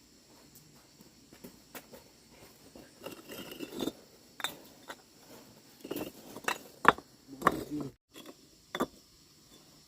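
Irregular knocks, taps and scrapes of objects being handled, with the loudest knock about seven seconds in.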